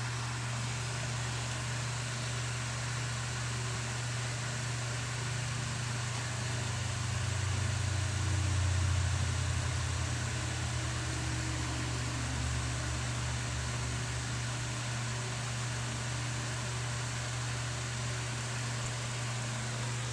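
Steady low hum over an even hiss, growing slightly louder for a few seconds around the middle.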